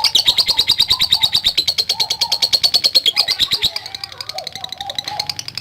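Lovebird singing a long, fast chattering trill: a rapid string of short clicky notes, about a dozen a second, loud for the first three and a half seconds, then continuing more softly.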